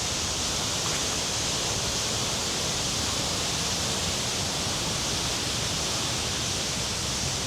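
Steady rush of flowing river water, swollen after heavy rain.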